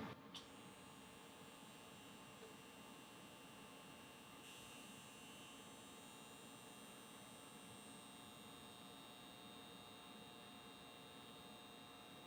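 Near silence: a faint steady electrical hum and hiss, with one small click just after the start.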